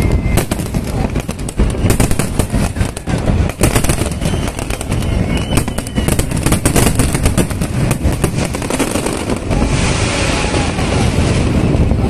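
Fireworks finale barrage: many shells bursting at once in rapid, overlapping bangs and crackling. The bangs thin out near the end into a steady rushing noise.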